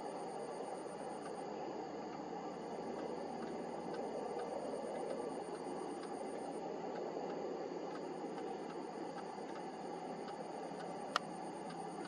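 A very high, evenly pulsed insect trill in three long runs that stop and start, over a steady low hiss, with one sharp click near the end.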